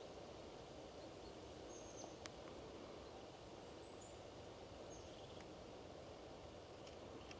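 Faint woodland ambience: a steady low hiss with a few short, high bird chirps, three in all, and a single small click about two seconds in.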